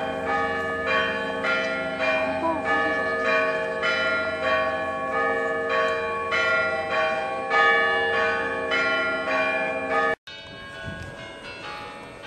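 Russian Orthodox church bells of the Kazan Cathedral ringing: several bells struck in a quick, even pattern about twice a second over the long ring of the larger bells. After a brief cut near the end, the quieter bells of the Kremlin's Savior (Spasskaya) Tower begin ringing.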